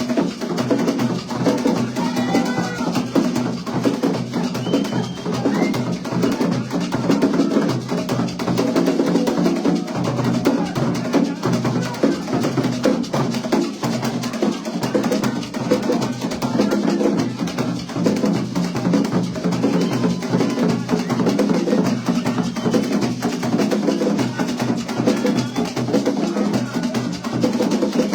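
Music driven by drums and percussion, with a steady beat.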